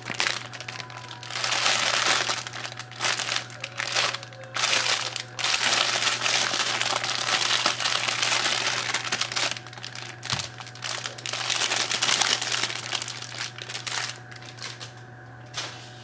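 Clear plastic packaging bag crinkling as hands unwrap a plush toy from it, in irregular rustling bursts that thin out near the end.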